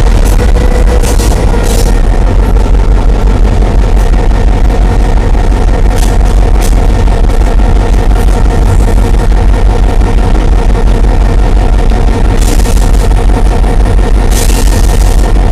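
EMD GP10 diesel locomotive's engine running steadily and loudly, with a constant droning hum. Two short bursts of hiss come near the end.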